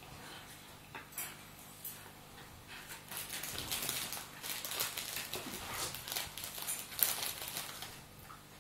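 Two Staffordshire bull terriers, an adult and a pup, play fighting: scuffling and mouthing at each other, with scattered clicks, growing louder about three seconds in and with one sharp click near the end.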